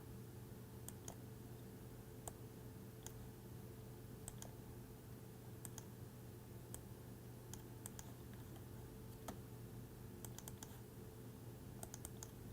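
Faint, irregular small clicks, a few each second at most, over a steady low electrical hum.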